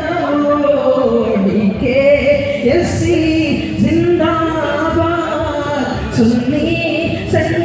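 Voices singing a song, with long held notes that slide and bend in pitch.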